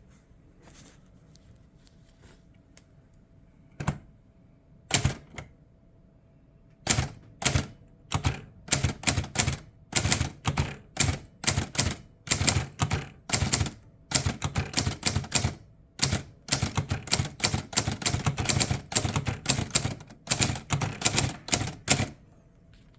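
First-generation Hermes 3000 manual typewriter being typed on. After a few quiet seconds and one or two single strokes, a run of quick key strikes lasts about fifteen seconds and stops near the end.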